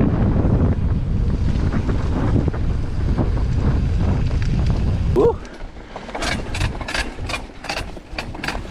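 Wind rumbling loudly on the bike-mounted camera's microphone as a mountain bike descends a dirt trail at speed. A short rising squeal comes just after five seconds in. The bike then slows and coasts, and rapid sharp ticking from the rear freehub ratchet sets in, a noise the riders call great.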